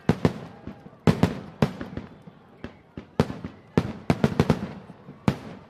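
Fireworks and firecrackers going off all around: a rapid, irregular run of sharp bangs, some close together in pairs and clusters, each followed by a short echo.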